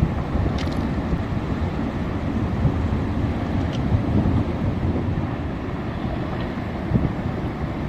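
Ice avalanche of hundreds of tonnes of glacier ice and rock sliding down the slope, heard as a steady low rumble mixed with wind on the microphone.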